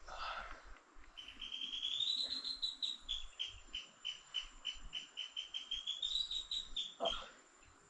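A bird calling a long rapid trill of repeated high notes, about five a second, lasting roughly six seconds. The pitch rises, sags through the middle, rises again and then stops.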